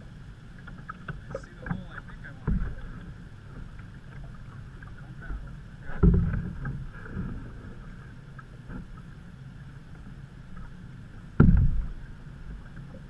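Canoe being paddled on a creek: water swishing and dripping with the paddle strokes, and three low thumps on the canoe, about two and a half seconds in, about six seconds in and near the end, the last two the loudest.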